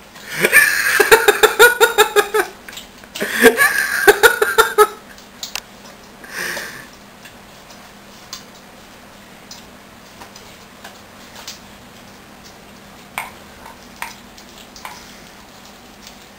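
A person laughing in two bursts of rapid 'ha-ha' pulses, then a dog's scattered wet clicks and smacks as she licks at sticky chunky peanut butter in her mouth.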